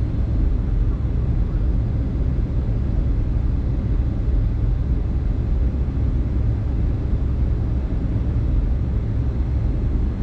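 Boeing 757-200 in flight, a steady low rumble of its engines and the airflow, unchanging throughout.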